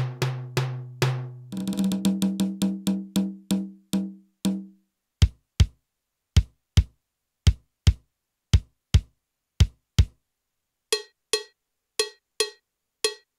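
Roland TD-8 electronic drum module sounding single drum hits as its voices are auditioned. First come quick tom strokes, then pairs of low bass-drum kicks with short gaps, and near the end higher ringing hits like a cowbell.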